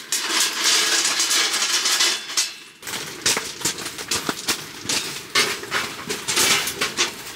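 Gravel crunching and rustling as someone shifts about on a stone floor for the first few seconds, then a run of short knocks and clinks as a round kerosene heater is lifted and set down into a metal ring table.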